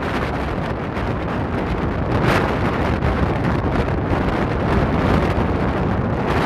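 Bell Boeing V-22 Osprey tiltrotor flying low overhead with its rotors tilted upright, a loud steady rush of rotor and engine noise mixed with wind buffeting on the microphone.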